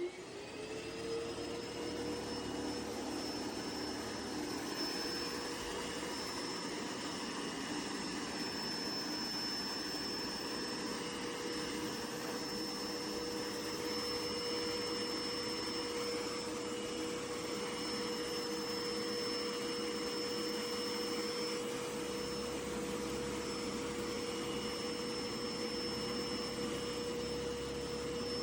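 MOVA P10 Pro Ultra robot vacuum running. Its motor speeds up over about the first second, then runs steadily with a high whine over the hum.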